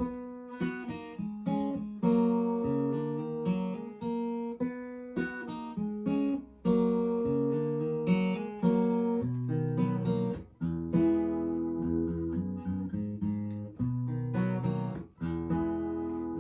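Acoustic guitar alone playing a song's instrumental introduction, chords picked and strummed with each note ringing on.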